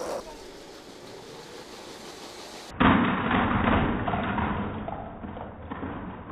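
A small LEGO train running quietly along plastic track, then about three seconds in a sudden loud crash as two LEGO trains collide and derail, with plastic cars and pieces clattering that dies away over a couple of seconds.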